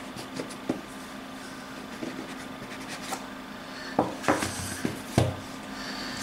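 Cardboard phone box being opened by hand on a wooden table: light rubbing as the lid is slid off, then a few sharp knocks in the second half as the box parts are set down on the desk.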